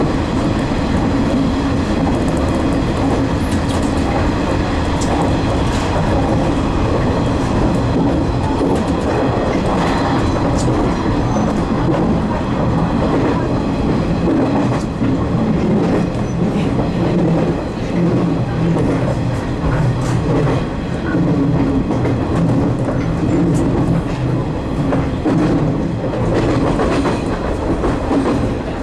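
JR East 719 series electric train running along the line, heard from inside at the front of the cab. The wheels give a steady rumble on the rails, with scattered clicks from the rail joints.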